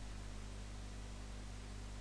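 Steady hiss with a low electrical hum underneath: the open-microphone noise floor of a screen recording, with no other sound.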